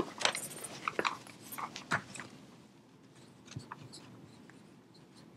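A run of light clicks and knocks in the first two seconds, then faint scratching and ticking of a dry-erase marker writing on a whiteboard.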